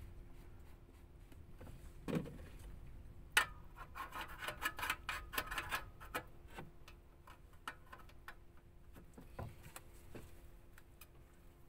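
Scattered light clicks, taps and knocks of hands working at a small gasoline boat engine and its fuel jug while it is readied to start, with a busy run of rattling clicks in the middle, over faint wind noise.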